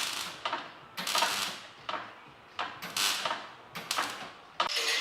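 Electric welder striking a series of short arcs, each lasting under a second, as tack welds go into a rusted steel sill. Near the end a longer, steady arc begins.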